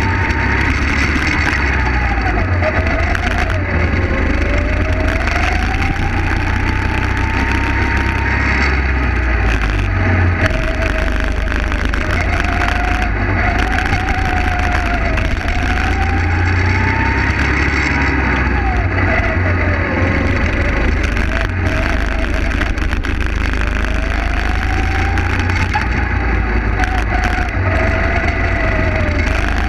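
A go-kart engine heard from on board, its pitch repeatedly rising on the straights and falling into the corners as the driver accelerates and lifts around the track, over a heavy low rumble.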